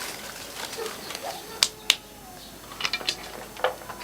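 A few sharp, separate clicks or taps. The two loudest come close together about one and a half seconds in, and a few lighter ones follow near the end.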